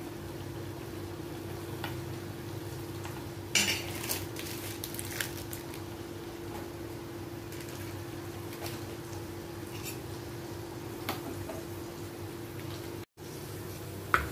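Cashews and raisins frying in hot fat in a small steel pan: a steady sizzle under a steady hum, broken by metal clinks and clatters, the loudest about three and a half seconds in. Near the end, a sharp clink as the pan is tipped over a steel bowl.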